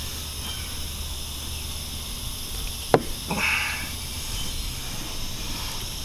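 Pliers tugging at an old tire plug's cord stuck in a mower tire: one sharp click about three seconds in as the grip slips, followed by a brief hiss, over a steady low hum.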